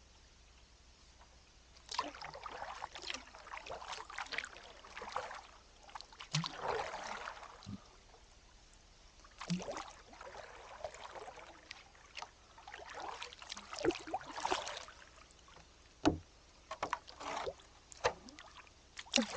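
Canoe paddle strokes through calm water: the blade dips, pulls and splashes in irregular bursts every second or two. About two-thirds of the way through there is a single sharp knock.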